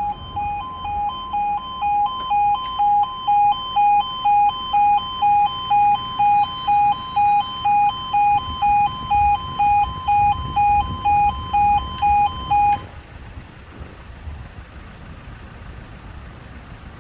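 Level crossing audible warning alarm sounding a loud two-tone pulse, about two beats a second, over a low rumble of road traffic. It stops suddenly about 13 seconds in, as the barriers finish coming down.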